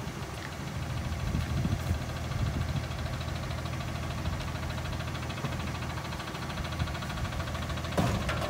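Front-loading garbage truck's engine idling steadily, with a sharp knock about eight seconds in.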